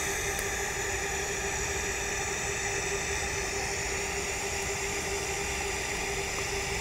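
TIG welding arc on carbon steel at about 85 amps, DC: a steady, even hiss with a faint steady hum under it.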